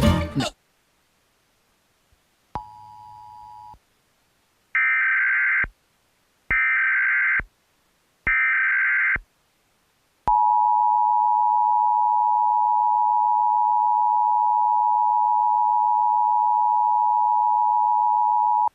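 Emergency Alert System test tones: a brief faint two-tone beep, then three one-second bursts of SAME header data, then the steady two-tone EAS attention signal held for about eight seconds.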